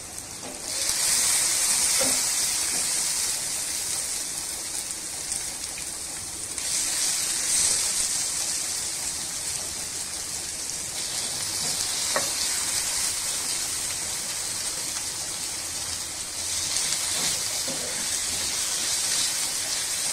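Parboiled julienned carrot and beetroot sizzling as they shallow-fry in oil in a frying pan. The sizzle is a steady high hiss that swells about a second in, again around six to seven seconds and near sixteen seconds, with a couple of faint clicks.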